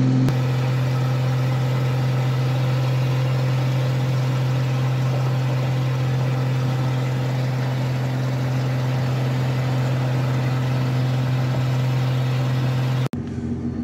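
Old Chevy C10 pickup's engine and loud exhaust droning steadily at a constant highway cruising speed, heard inside the cab. The drone briefly drops out near the end.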